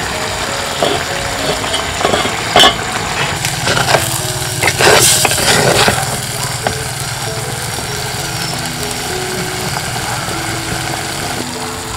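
A ladle knocking and scraping against a clay cooking pot as a thick curry is stirred, loudest in a burst of clatter a few seconds in. Soft background music plays throughout.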